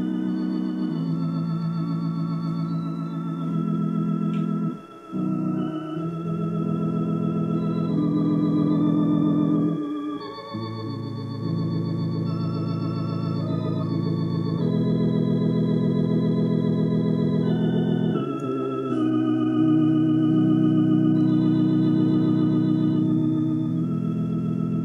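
Organ playing slow, held chords with a slight vibrato, changing chord every few seconds, with two brief breaks about five and ten seconds in.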